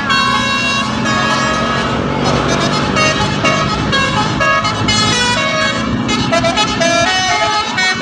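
Bus telolet (basuri) multi-tone horn playing a quick tune, its notes stepping up and down several times a second, over a steady low hum.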